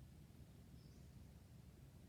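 Near silence: faint outdoor ambience with a low rumble, and one faint, short bird chirp a little under a second in.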